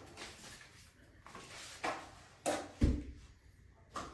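A few light knocks and clicks from handling, with one heavier thump a little under three seconds in; no vacuum motor is running.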